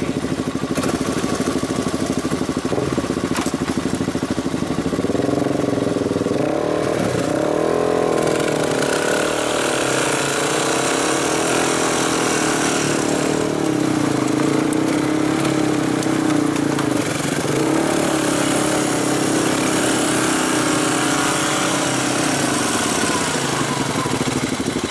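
Two single-cylinder four-stroke ATV engines, a Honda ATC250SX three-wheeler and an Arctic Cat DVX 400 quad, running together. From about five seconds in they rev hard and hold high, wavering revs while the three-wheeler tries to tow the mud-bound quad out on a strap and the wheels spin in the mud.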